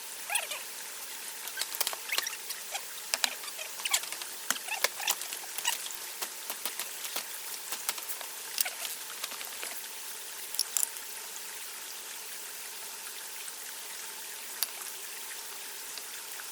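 Scattered light ticks and scratches of hand work on wood over a steady hiss; the ticking thins out after about eleven seconds.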